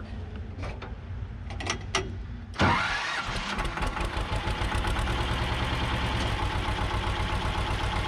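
Belarus 250AS tractor's diesel engine starting: a few clicks, then about two and a half seconds in the engine fires abruptly and settles into a steady idle with an even pulse.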